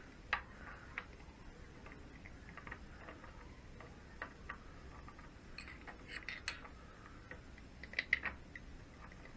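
Faint, light metallic clicks and taps as a selector-fork roller and a steel punch are worked inside a Triumph Bonneville gearbox case: a few scattered clicks, then quicker clusters in the second half.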